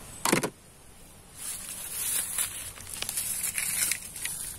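A brief knock about a third of a second in. From about a second and a half in, a dry crackling rustle of dead leaves and grass stems as a hand pulls a small plastic toy truck out of the litter.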